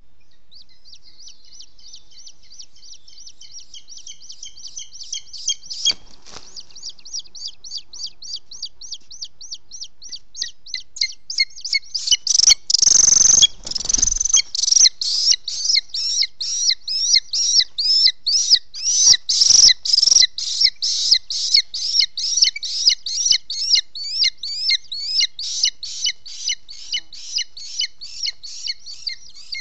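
Booted eagles at the nest: a long, even run of high, shrill calls, about two or three a second, faint at first and much louder from about ten seconds in. About twelve seconds in there is a burst of wing flapping and rustling nest sticks as adults land, with shorter bursts later.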